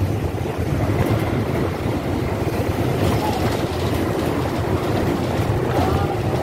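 Steady low rumble of a moving vehicle, with faint brief squeals about three seconds in and near the end.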